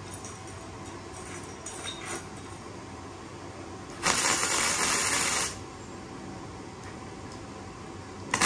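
Gasless flux-core MIG welder arc crackling and hissing for about a second and a half, a short tack weld on thin box-section steel with the current turned down. A second tack starts right at the end. Faint clicks of the torch and workpieces being handled come before the first.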